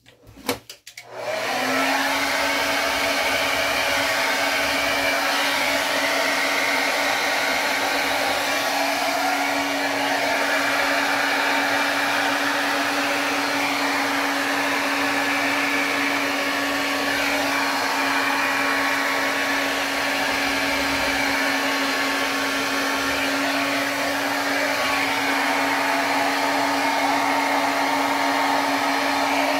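Handheld hair dryer switched on after a few clicks and then running steadily on high, a rush of air with a steady hum, blowing wet acrylic paint across a canvas.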